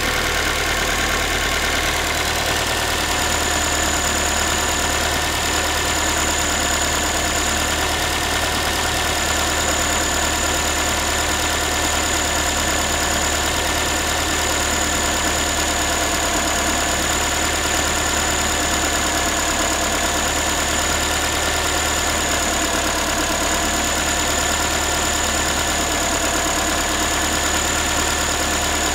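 Ford Focus 3's 1.6-litre 125 hp petrol engine idling steadily after a cold start, with a tinny, pot-like knocking noise from the engine that the owner cannot identify.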